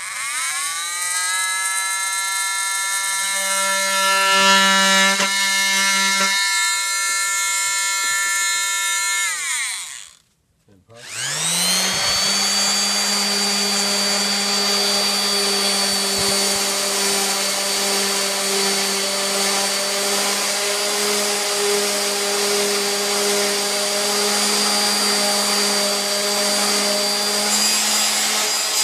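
A corded oscillating multi-tool spins up and runs with a steady whine for about ten seconds, trimming the leftover lip off the cut edge of an MDF panel, then stops. About a second later a random-orbit sander starts up and runs steadily, flattening that edge for edge banding.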